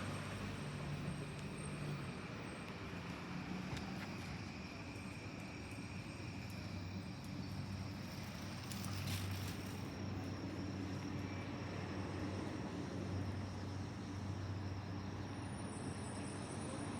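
Steady low hum of a vehicle or train with insects chirping steadily over it, and a brief hiss about nine seconds in.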